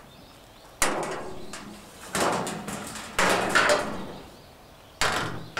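Thin Galvalume sheet-steel roofing panels being lifted, flexed and set down on a steel truck bed: about four sharp metallic clatters and scrapes, each fading over about a second.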